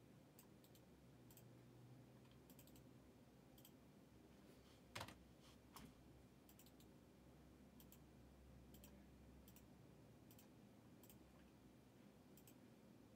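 Near silence with faint computer mouse and keyboard clicks while text is selected, copied and pasted, and one louder click about five seconds in.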